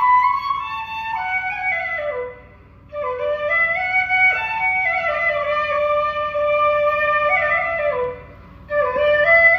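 Background music: a single melody line in a wind-instrument tone, moving in short steps, with two brief pauses.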